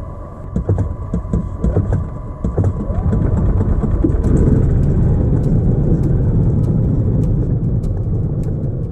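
Golf cart driving along a rough dirt track: rattles and knocks for the first couple of seconds, then a louder steady running rumble from about three seconds in.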